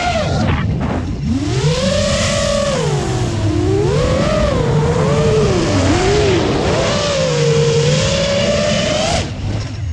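Brushless motors and propellers of a 7-inch long-range FPV quadcopter whining in flight over wind rush, the pitch swooping up and down as the throttle changes. The pitch dips sharply just after the start and again near the end, then climbs back.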